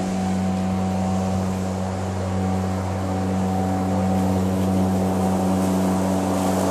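ECHO 58-volt cordless lawn mower's brushless motor and blade running while mowing: a steady electric hum with a few fixed tones, growing gradually louder as the mower comes closer.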